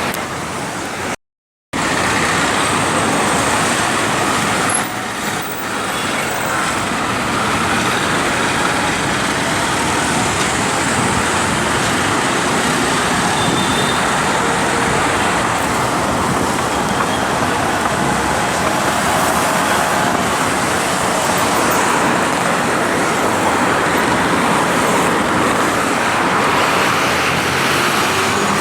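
Busy city street traffic: a steady, dense wash of passing cars, buses and trucks, engines and tyres together. The sound cuts out completely for a moment about a second in.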